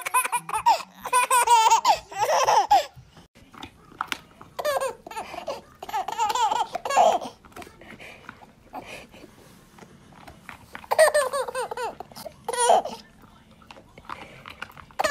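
Babies laughing, high-pitched, in several bursts with short pauses between.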